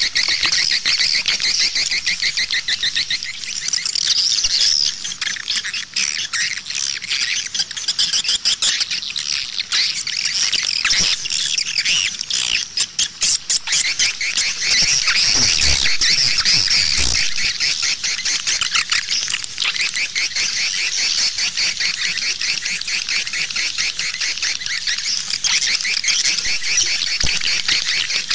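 Swiftlet lure call: a dense, nonstop chorus of rapid, high chittering swiftlet twitters, the 'outside' sound played from a swiftlet house to draw the birds in.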